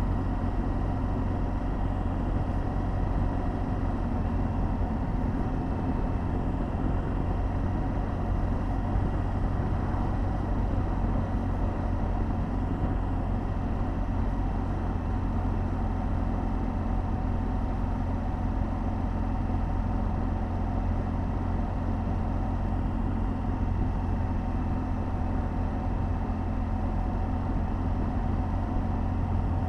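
BMW R 1200 GS Adventure's boxer-twin engine running steadily at a light, even cruise of about 30 mph, heard from on the bike, mixed with a constant low rumble of wind and road noise.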